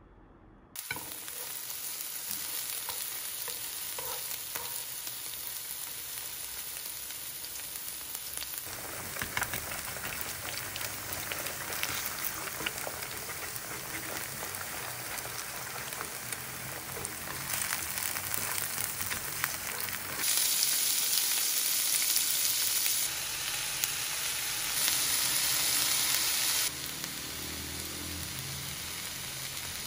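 Food sizzling in a hot frying pan, starting about a second in: eggs scrambling in green-onion oil, then rice and chopped vegetables being stir-fried, with some stirring. The sizzle gets louder and quieter in steps as the clips change.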